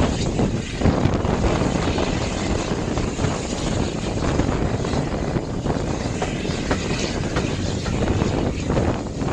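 A passenger train running along the line, heard from a carriage window: a steady, loud rush of travelling noise and wind on the microphone, with no distinct beat.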